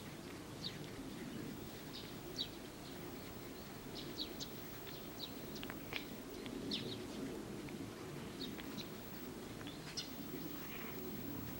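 Small birds chirping now and then: short, scattered high chirps, several a second at times, over a steady low background hum.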